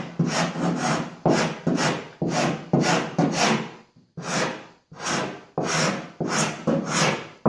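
A hand edge tool scraping across the wooden strips inside a canoe hull in quick repeated strokes, about two a second, with a short pause about four seconds in: cleaning dried glue squeeze-out off the strips before fiberglassing.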